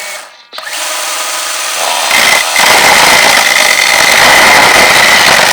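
The chainsaw of a radio-controlled tracked sawmill running and cutting through a log: a steady high motor whine with rasping cutting noise. It drops out briefly about half a second in, then gets louder from about two seconds in as it bites into the wood.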